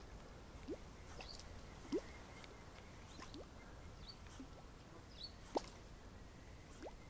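Small water plops from a popper lure being twitched across a calm pond surface. There are five short blips, each rising quickly in pitch, spaced irregularly about one to two seconds apart; the ones about two seconds in and five and a half seconds in are the loudest.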